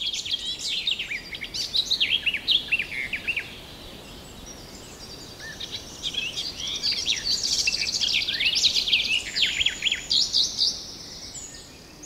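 Small songbirds chirping, many quick high calls overlapping, easing off for a couple of seconds in the middle and thinning again near the end.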